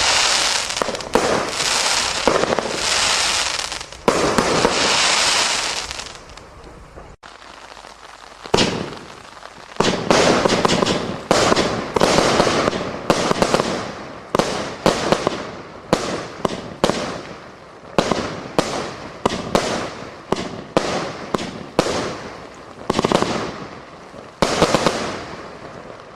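Consumer firework barrages firing: first a few seconds of long crackling, hissing swells, then after a short break a rapid run of sharp bangs at about two a second, each followed by a fading crackle.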